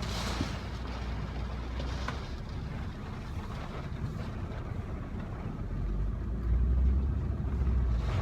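Car engine and road rumble heard from inside the cabin, steady and low, with a deeper rumble growing louder about six seconds in.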